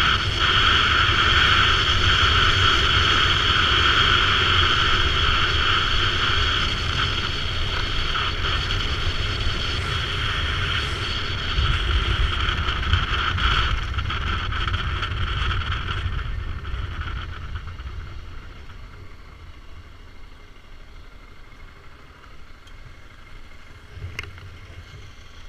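BMW F650 GS dual-sport motorcycle riding along, its engine running steadily under wind rush, with a constant low rumble and a steady whine. About two-thirds of the way through, the sound dies away.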